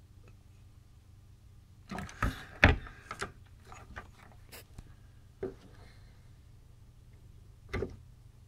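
Handling noise from the power supply being worked on by hand: a cluster of knocks and clicks about two seconds in, then two single knocks later, over a faint steady hum.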